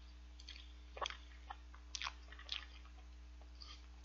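Faint chewing of soft choux cream-puff pastry, with a few soft wet mouth clicks at irregular intervals.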